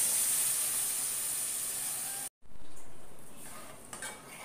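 Water poured into hot oil and masala in a kadai, setting off a steady, high-pitched hiss and sizzle. A little over two seconds in it cuts off abruptly, then a fainter sizzle fades away.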